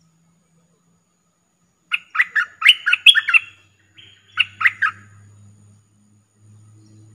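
A caged decoy bulbul calling: a quick run of bubbly chirping notes about two seconds in, then a shorter phrase of two notes about a second later.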